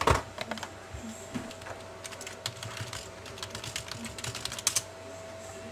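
Typing on a computer keyboard: irregular keystroke clicks, with a quick flurry in the middle and another just before the end, over a faint steady hum.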